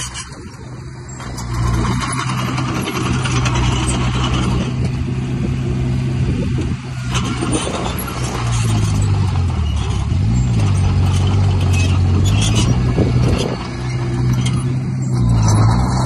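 Komatsu bulldozer's diesel engine running hard, with scattered metallic knocks. Its pitch drops and comes back twice around the middle.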